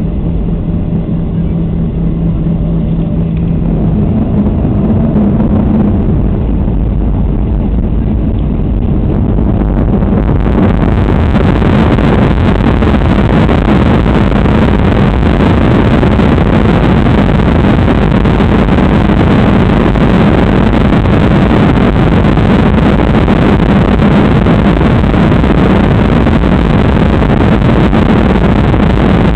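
Jet engines of a Ryanair Boeing 737 at take-off power. Steady engine tones in the first few seconds give way, about ten seconds in, to a louder, even roar of engine and rushing air that holds through the take-off run and climb.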